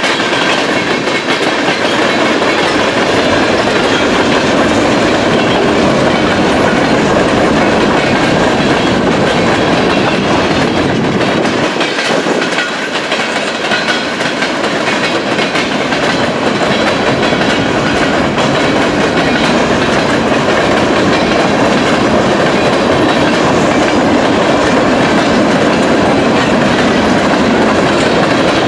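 Freight cars of a manifest train rolling past, steel wheels running on the rails in a steady, loud rolling noise that eases briefly about twelve seconds in.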